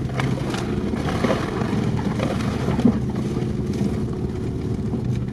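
Inside a moving ZAZ-968M: its rear-mounted air-cooled V4 engine running steadily under load, with the body knocking and rattling over a rough, rutted track. One sharper knock comes about three seconds in.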